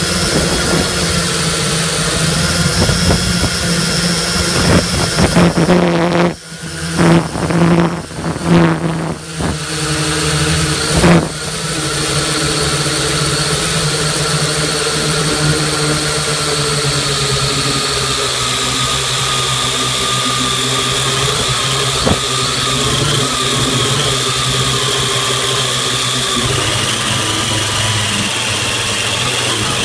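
Quadcopter drone's electric motors and propellers whining close up, a steady multi-tone hum whose pitch shifts as the drone manoeuvres. The sound stutters and dips several times about a third of the way in, then runs evenly with the pitch easing slightly downward.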